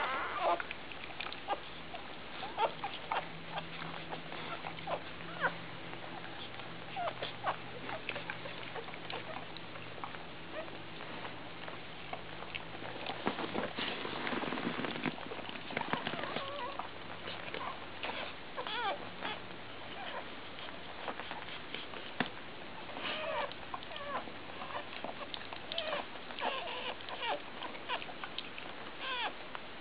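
Newborn Labrador retriever puppies squeaking and whimpering on and off in short, high calls. About halfway through there are a few seconds of louder rustling noise.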